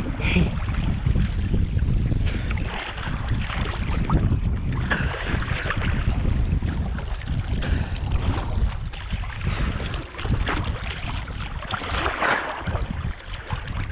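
Sea water sloshing and splashing around a camera held at the waterline in choppy sea, with wind buffeting the microphone, in uneven surges.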